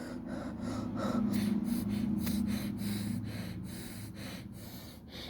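Automatic blood pressure monitor's small air pump running as it inflates the arm cuff, a steady hum that swells and then eases off.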